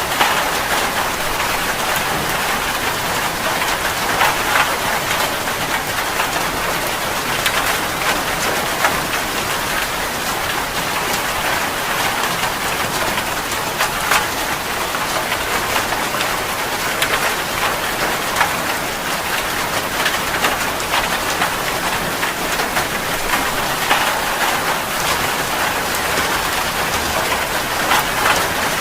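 Heavy rain falling steadily, with many individual drops pattering and splashing on a surface.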